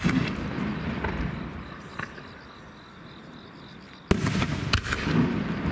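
Aerial firework shells by Nomura Fireworks bursting: a sharp boom opens and trails off into a long rolling rumble, a small crack comes about two seconds in, and another sharp boom about four seconds in is again followed by rumbling.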